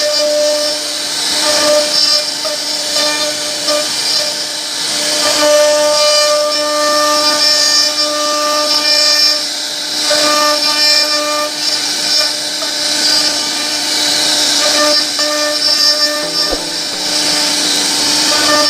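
CNC router spindle whining steadily while its bit carves a wooden board, a constant tone with higher overtones that drop in and out as the cut changes, over a hiss of cutting noise.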